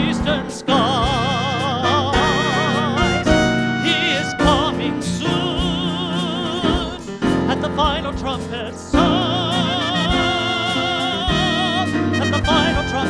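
Gospel song's instrumental close with no words: a lead melody of held notes with a wide vibrato over band backing and drum hits.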